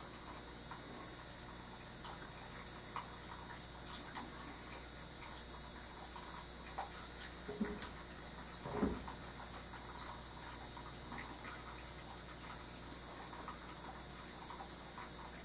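Quiet room tone: a steady hiss and low hum with scattered faint ticks, and two soft knocks a little past the middle.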